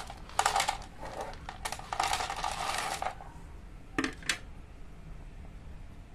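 Dry cat kibble poured from a tray into a bowl, rattling in a few short pours and a longer one of about a second. Two short clacks follow about four seconds in.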